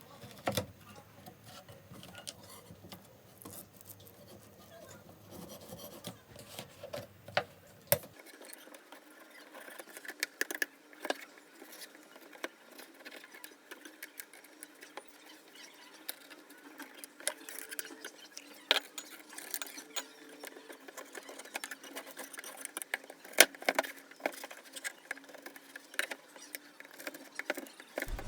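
Irregular clicks and knocks of a knife cutting a slab of set sugar-and-peanut brittle into pieces on a chopping board.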